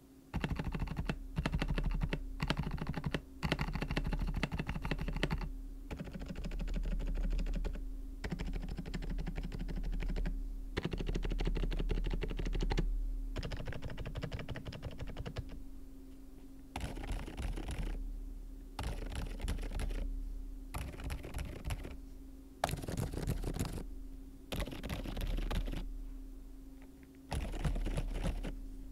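Typing on a QSENN DT35 87 keyboard with its stock Otemu Lime V3 silent tactile switches, PC plate and PBT keycaps: runs of rapid keystrokes lasting a few seconds each, broken by short pauses.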